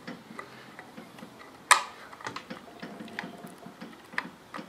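Small screws being driven into a Tesla drive unit's inverter control board with a small screwdriver: light scattered ticks and clicks of metal on metal, with one sharp, louder click about two seconds in.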